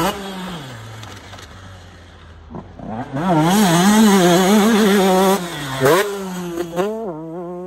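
Motocross bike engine revving up and down as the rider works the throttle through the track, quieter at first, loudest from about three seconds in, then revving again near the end before it cuts off suddenly.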